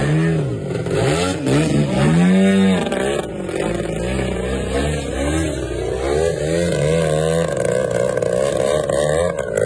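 Engine and propeller of a radio-controlled aerobatic plane, revving up and down again and again as it climbs, hangs and passes overhead, loudest about two seconds in.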